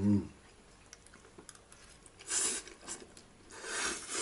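A man eating lagman noodles: two short hissing noises, about two seconds and three and a half seconds in, over quiet chewing.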